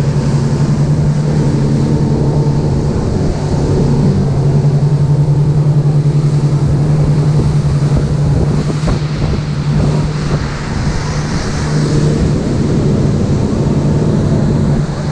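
Boat motor running at a steady speed in a constant low drone, with wind buffeting the microphone and water noise around it.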